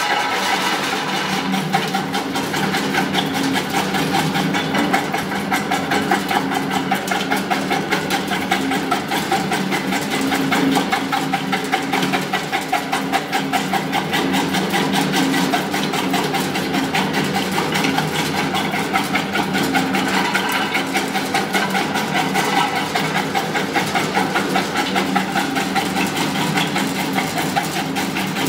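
Areca nut (supari) cutting machine running steadily, its motor humming under a dense, rapid clatter as whole betel nuts are fed in and sliced.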